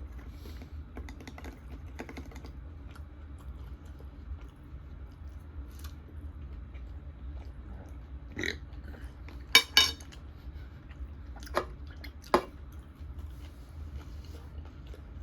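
Close-miked chewing and crunching of a fried wonton: a steady run of small crackly clicks, with a few louder sharp clicks in the second half.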